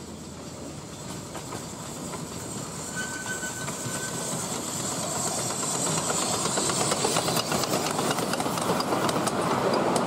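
A 10¼-inch gauge miniature steam locomotive hisses steam as it approaches and passes, growing louder. From about halfway in, its coaches' wheels click over the rail joints as they run by.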